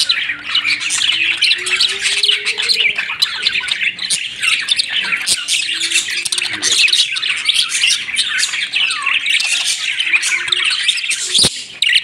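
A flock of budgerigars chattering, with many overlapping chirps and squawks in a dense, continuous warble.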